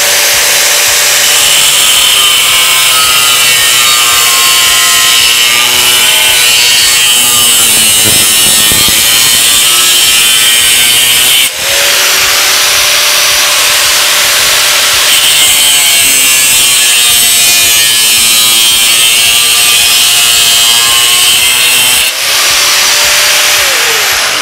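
Bosch GWS 7-115 angle grinder with a cut-off disc cutting through a square steel tube. The motor's whine drops in pitch while the disc bites into the metal and rises back to free-running speed twice when it runs free, and the grinder winds down at the very end.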